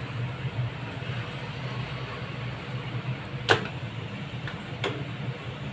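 Spatula scraping thick matar chole out of a non-stick pan into a serving bowl, with a sharp knock about three and a half seconds in and a softer one near five seconds, over a steady low hum.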